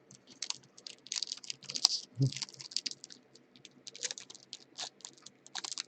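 Typing on a computer keyboard: quick, irregular key clicks in short runs, with a soft thump about two seconds in.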